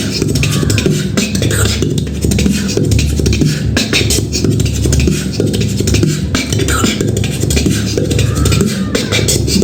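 Human beatboxing: a continuous rhythmic routine of deep bass tones under sharp, crisp clicks and snare-like hits.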